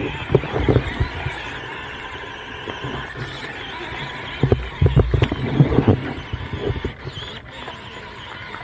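FMS Atlas 6x6 1/18-scale RC crawler driving through a shallow rocky stream: the whine of its stock electric motor and drivetrain over flowing water. Bursts of low thumping and splashing come right at the start and again about halfway through.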